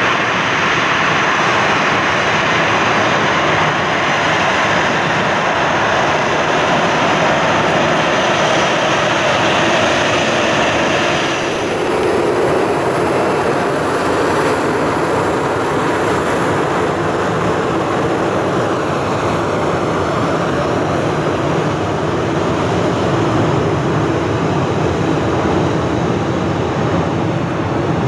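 Jet aircraft engines running loudly with a continuous roar and a thin high whine. About twelve seconds in, the hiss thins out and the roar settles lower.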